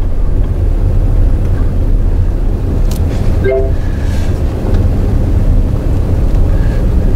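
Daihatsu Move Custom kei car driving slowly: a steady low in-cabin rumble of engine and road noise. A single click comes about three seconds in, with a brief short tone just after.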